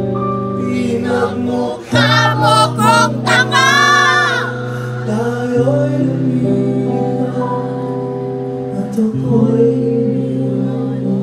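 A man singing live into a handheld microphone through the PA, over steady held backing chords. His voice is loudest, with wavering held notes, from about two to four seconds in.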